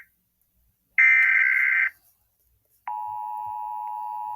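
Emergency Alert System alert sounds. First a burst of screechy digital header data, about a second long, starting about a second in. Then, about three seconds in, a steady electronic alert tone begins and holds; it introduces the severe thunderstorm warning.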